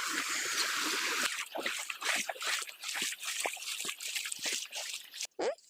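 Water trickling and splashing: a steady rush for about the first second, then many short uneven splashes, stopping abruptly near the end.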